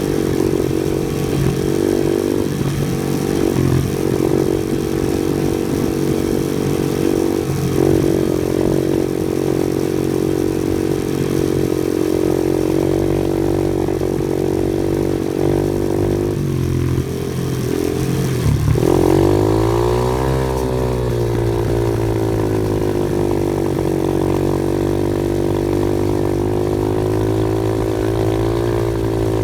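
Off-road vehicle's engine running steadily under load, its pitch shifting with the throttle. A little past two-thirds of the way through it drops off briefly, then revs back up and settles into a steady run.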